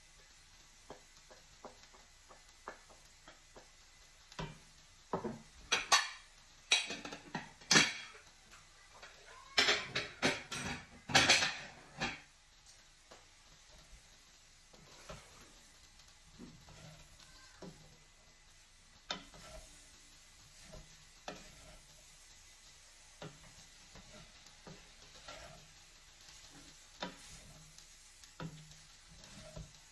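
Wooden spoon scraping and knocking on a serving dish and a stainless steel pot as shrimp are pushed in and stirred through fried rice and vegetables. A run of louder scrapes and knocks comes between about 4 and 12 seconds in, followed by lighter, sparser stirring knocks.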